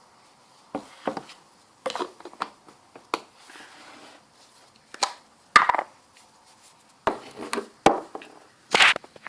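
Fluffy slime made from glue, detergent and shaving foam being worked: irregular wet, sticky squelches and clicks, several a second, with a few sharper snaps near the end.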